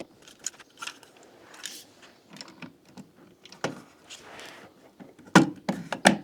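Handling noises of work on a cabin wall: scattered light clicks and knocks, the loudest a sharp knock about five and a half seconds in.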